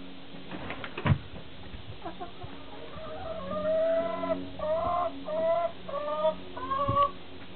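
Chickens calling: a sharp thump about a second in, then from about three seconds in a series of loud, drawn-out calls, the first the longest, followed by four shorter ones.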